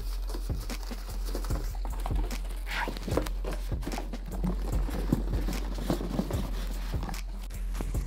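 Cardboard carton, polystyrene packing and plastic bag scraping, rustling and knocking as a boxed PC case is dragged out of its box, in irregular bumps and scrapes.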